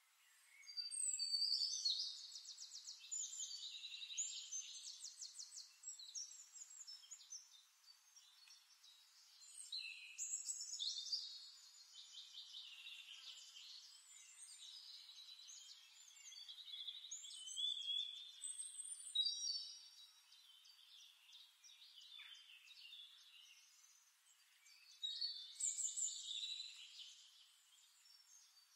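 Songbird singing in separate phrases of high trills and gliding whistles, four bursts of song with quieter gaps between them.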